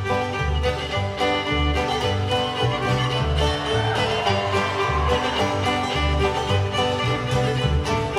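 Bluegrass music with fiddle, banjo and guitar over a steady bass beat.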